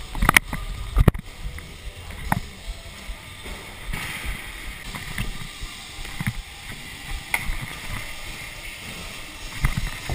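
Stunt scooter wheels rolling over wooden skatepark ramps, a steady rumble broken by sharp clacks of the scooter landing and hitting the ramp: two loud ones within the first second or so, lighter knocks through the middle and another loud one near the end.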